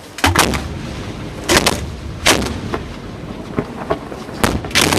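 Aerial firework shells going off from a barge display: about half a dozen sharp, loud bangs over a low rumble, the strongest coming in pairs near the start and near the end.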